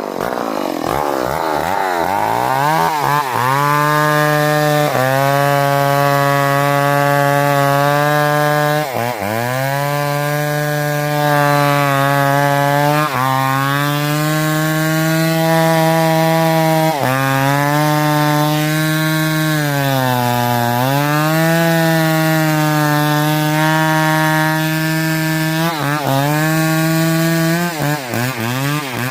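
Chainsaw engine running at high revs as it cuts wood. It revs up at the start, then holds a steady high pitch that drops briefly and recovers several times.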